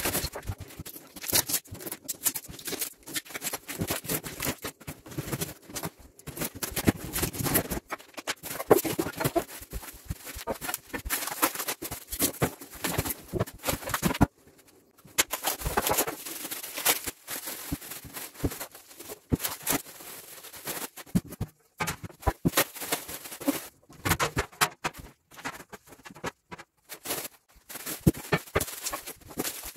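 Unpacking a boxed steel snowplow kit: cardboard flaps and packing rustling and scraping, plastic wrap crinkling, and steel parts knocking as they are handled, in an irregular run of crinkles, scrapes and sharp knocks.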